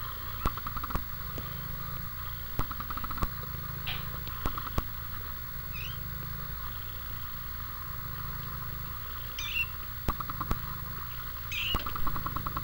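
Three-week-old kittens playing: three brief high squeaks, over a steady low hum with scattered small clicks.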